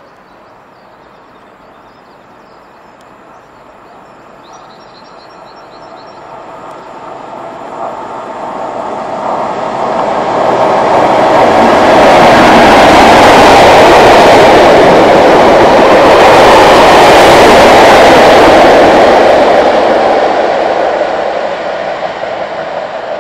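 Class 37 diesel locomotive with its English Electric V12 engine hauling a test train through at speed: the engine and rolling noise swell steadily as it approaches, are loudest for several seconds as it passes close by, then fade as it runs away.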